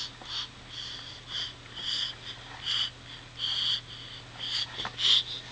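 A small child making short, breathy, high-pitched mouth noises, over and over at about two a second.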